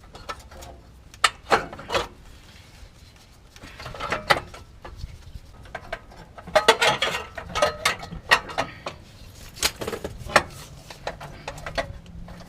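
Metal clanks and clicks of an exhaust heat shield and hand tools being handled and fitted, in irregular sharp knocks with a busier stretch about two-thirds of the way through.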